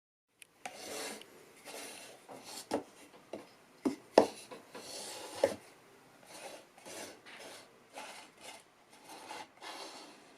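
Wood being sanded or rasped by hand: rough scraping strokes about one to two a second, with a few sharp knocks of wood in between, the loudest about four seconds in.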